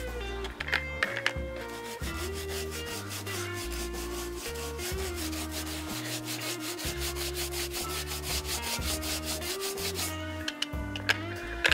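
Brush scrubbing back and forth along a leather boot's welt, in quick even strokes, over background music with a bassline and a melody.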